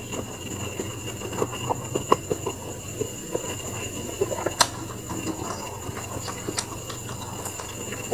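Close-up chewing of a sausage: many small, irregular wet mouth clicks and smacks, over a steady faint high whine in the background.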